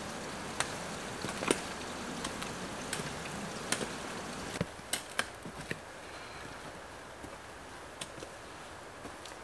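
Footsteps on a wet mountain trail: irregular sharp taps and clicks, a dozen or so spread unevenly, over a steady hiss that drops a little about halfway through.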